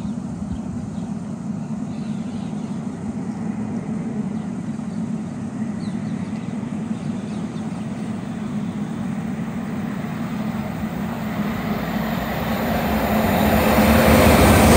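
GWR Intercity Express Train approaching at speed: a steady rumble of wheels on rail that grows louder over the last few seconds as the train nears.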